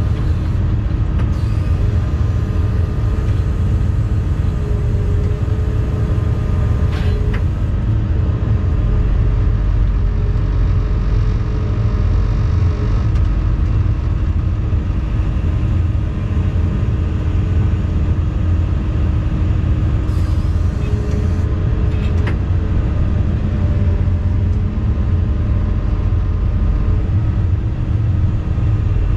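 Volvo EC220E excavator's diesel engine and hydraulics running steadily, heard from inside the cab, with a hydraulic whine that comes and goes as the paving-stone grab is swung and lowered, and a few faint clicks.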